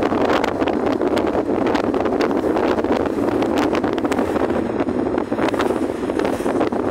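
Steady road and wind noise of a moving car, heard from inside the cabin, with many short clicks scattered through it.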